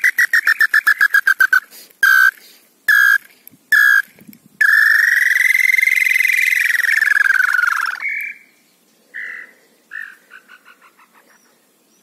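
Whistled tataupa tinamou ('lambu pé roxo') song. It opens on a fast run of notes that slides down in pitch and speeds up, then three single notes, then a long whistle that rises and falls. Near the end comes another short run that quickens and falls.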